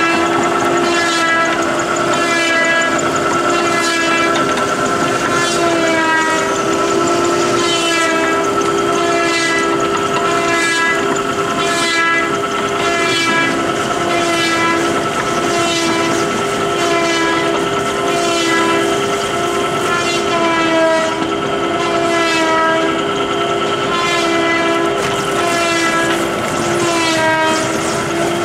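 A 3-row drainer and scrubber fiber-processing machine running, its rotating rollers giving a steady whine made of several pitches that waver together in a regular repeating cycle.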